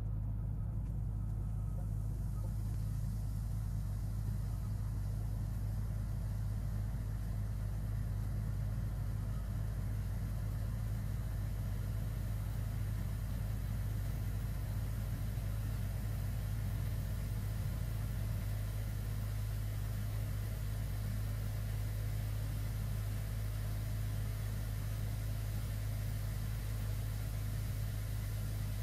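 Steady low hum throughout, with a faint fizzing hiss that builds over the first few seconds as sodium percarbonate reacts with hot water in a sink drain and foams.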